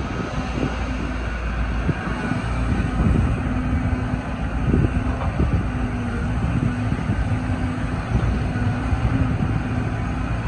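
Caterpillar 313 GC excavator running as its upper structure swings and the boom and bucket move. The diesel engine and hydraulics give a steady low hum, with a few knocks from the moving machinery.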